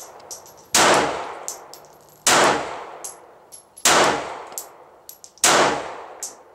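Glock 42 .380 ACP pocket pistol firing four single shots, evenly spaced about a second and a half apart, each shot ringing out and fading. Short, light, high clinks sound between the shots.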